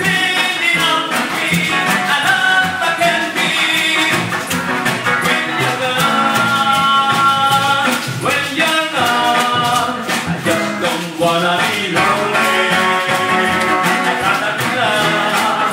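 Live band music played through a PA speaker: guitars and keyboard with a singer's voice over them.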